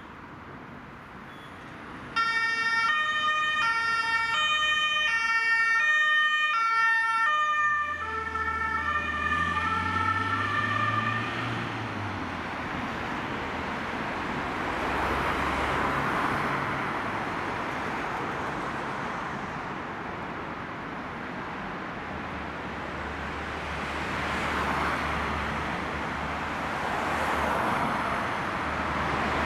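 Fire brigade equipment van's German two-tone siren (Martinshorn) sounding its alternating high-low tones. It starts loud about two seconds in, drops in pitch and fades with a passing engine rumble at around eight seconds, and gives way to steady road traffic noise.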